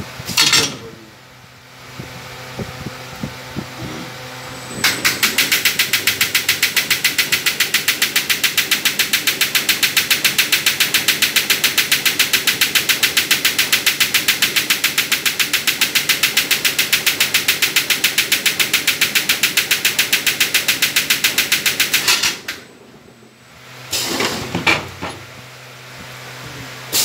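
Toilet tissue roll rewinding machine running: a loud, even, rapid pulsing hiss and clatter starts about five seconds in and cuts off suddenly a few seconds before the end. Short hissing bursts come just after the start and again near the end.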